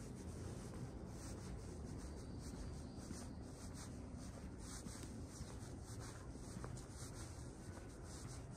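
Faint outdoor background rumble with soft, irregular rubbing and scuffing sounds, several a second, from the footsteps and handheld camera of a person walking along a paved road.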